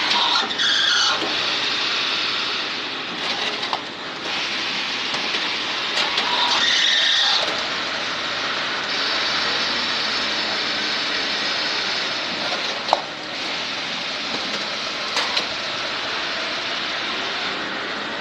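Machinery running with a steady, noisy din and high-pitched squealing that comes and goes. There are scattered clicks and one sharp knock about thirteen seconds in.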